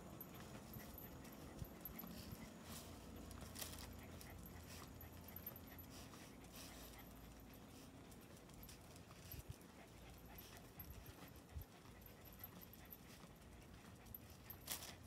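Faint dog panting close by, with a few soft clicks.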